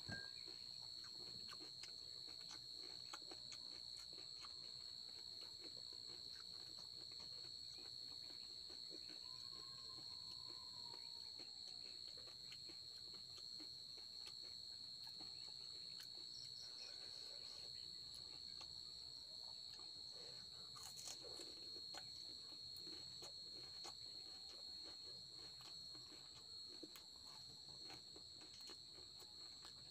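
Crickets trilling in a steady, unbroken high tone, with faint crunches and clicks of crisp puris being cracked open and eaten.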